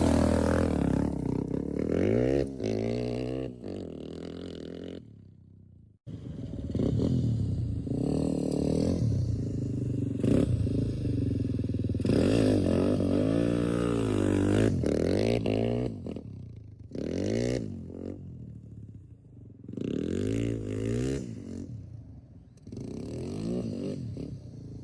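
Off-road vehicle engine revving up and falling back again and again as it rides through soft sand, with a short break about six seconds in.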